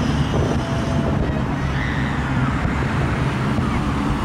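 Distant fireworks salute: many bursts blending into one continuous low rumble, with no single bang standing out.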